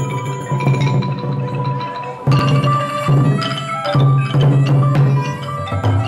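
Khmer pinpeat ensemble playing: roneat xylophones and a circle of gongs ringing out quick struck notes over a pair of large barrel drums (skor thom) beaten in front. The music swells suddenly about two seconds in.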